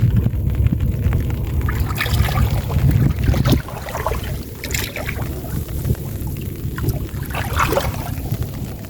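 Water splashing and trickling as the nets are worked in shallow floodwater, with wind rumbling on the microphone that eases off about three and a half seconds in.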